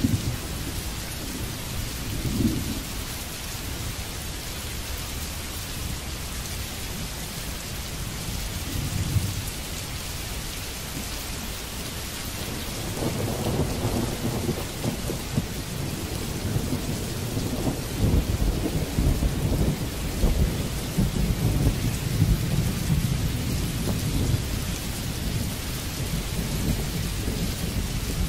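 Steady rain with rolling thunder. Short low rumbles come in the first few seconds, then a longer, louder rumble builds about halfway through and carries on until near the end.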